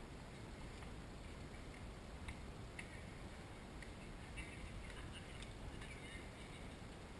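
Faint steady outdoor background hiss with a few soft, scattered clicks.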